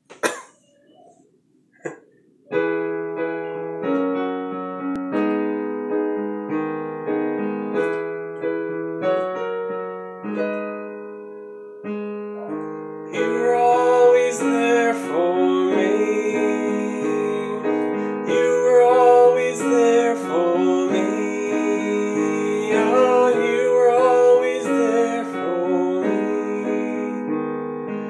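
Digital piano playing a slow chord accompaniment, which begins after a couple of clicks about two seconds in. About halfway through, a voice starts singing over the piano.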